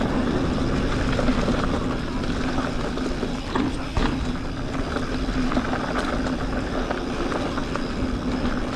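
Mountain bike riding down a dirt trail: continuous tyre and trail rumble with a steady low hum, and a couple of sharp knocks about three and a half and four seconds in.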